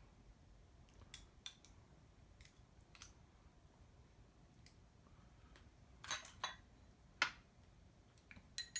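Scattered light clicks and taps of utensils against a bowl, with the sharpest ones about six and seven seconds in.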